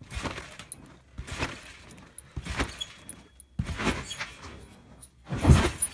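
Trampoline being bounced on: a thump from the mat with springs creaking, about once a second, the heaviest thump near the end.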